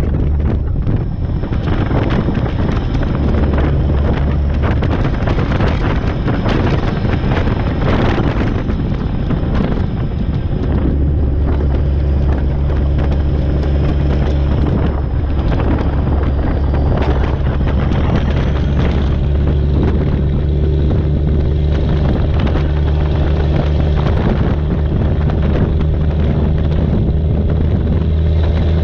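Semi truck's diesel engine droning at road speed while hauling a loaded lowboy trailer, with heavy wind rushing over the microphone.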